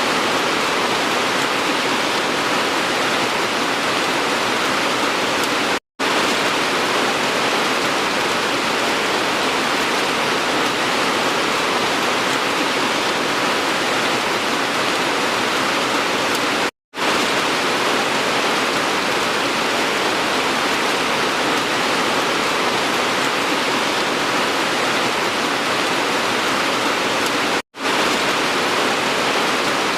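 Steady, dense rain hiss. It cuts out to silence for a split second three times, about every eleven seconds.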